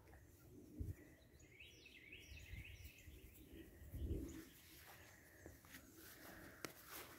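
Near silence: quiet outdoor ambience with faint high chirping for a second or so early on, and two soft low thumps about a second in and about four seconds in.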